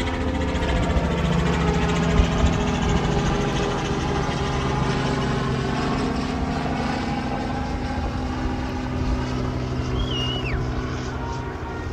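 A boat engine running steadily, a low drone with a held hum. A short high chirp that drops away at the end comes about ten seconds in.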